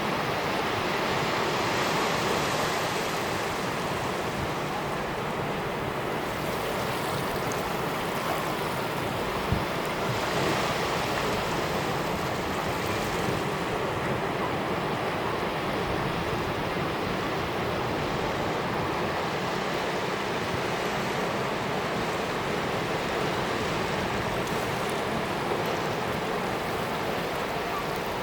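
Sea waves washing in a continuous steady rush of surf that swells gently now and then, with one brief tick about nine and a half seconds in.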